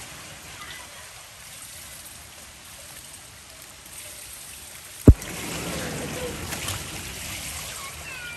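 Pool water splashing and churning as a child swims breaststroke, louder in the second half as the swimmer comes closer. A single sharp low thump about five seconds in.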